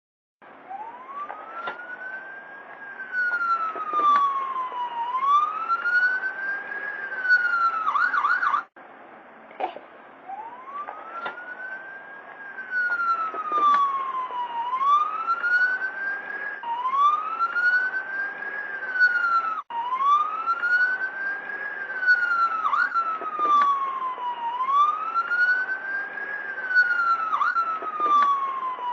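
Ambulance siren wailing, its pitch sliding slowly up and down about once every four and a half seconds. About eight seconds in it switches briefly to a rapid yelp, cuts off suddenly, and the wail starts again a second or so later.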